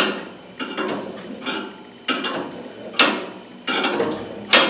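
Turnbuckle on a homemade spring-stretching jig being turned to stretch a hood hinge spring: a run of sharp metallic clicks, one every half second to a second.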